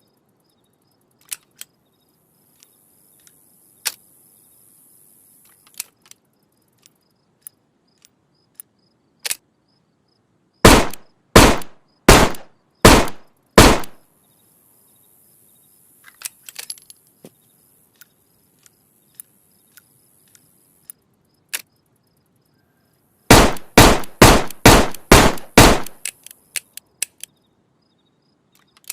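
Sawed-off revolver sound effect: five loud gunshots spaced a little under a second apart, then a faster string of about seven shots, roughly three a second. Scattered small clicks come between the groups of shots.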